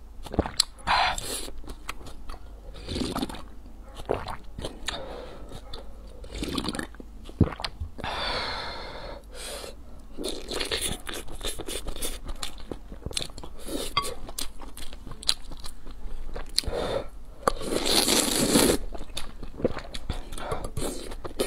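Close-miked eating sounds: chewing and slurping spicy noodles and broth, with many short sharp clicks scattered through and two longer slurps about eight seconds in and near the end.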